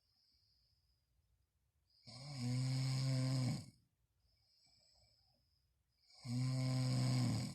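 A person snoring very loudly: two long snores with a low buzzing rattle, about four seconds apart, with a faint breath between them.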